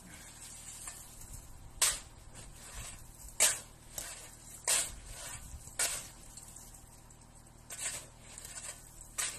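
A long-handled tool chopping into a hard-packed overhang of roof snow and ice, giving about six sharp strikes spaced one to two seconds apart.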